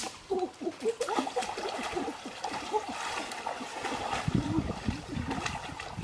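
Water splashing and trickling, in many short irregular splashes, with a sharp click right at the start.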